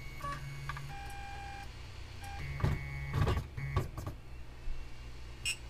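Trinus 3D printer's stepper motors whining and buzzing in short moves, with a few louder knocks about three seconds in, then going still. The printer halts on its own right after a print is started, the fault the owner keeps running into.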